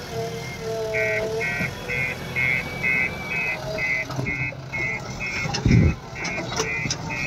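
JCB backhoe loader's diesel engine running as the machine reverses, its reversing alarm beeping evenly about twice a second from about a second in. A single low thump sounds near the end.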